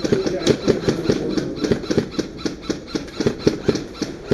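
A loose night-vision mount rattling and knocking on a helmet with each running stride, in a quick, even rhythm of about five knocks a second.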